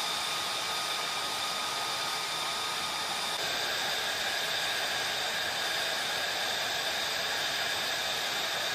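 F-35 Lightning II fighter's jet engine running steadily: a rushing roar with a high turbine whine over it. The whine jumps to a higher pitch about three seconds in.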